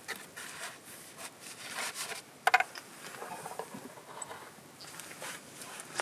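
Paper rustling and scraping as a trail register notebook is handled and put back in a wooden register box, with a sharp knock about two and a half seconds in.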